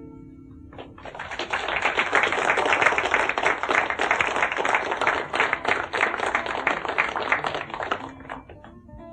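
Audience applauding for about seven seconds, starting about a second in over the last fading acoustic guitar chord; plucked guitar notes come back in near the end.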